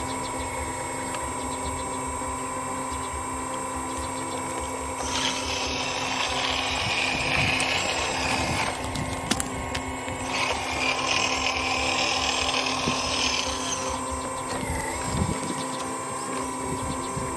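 Hydraulic pump of a radio-controlled hydraulic excavator model whining steadily, growing louder and harsher for two stretches of a few seconds each as the boom and bucket are worked. There is a sharp click between the two stretches.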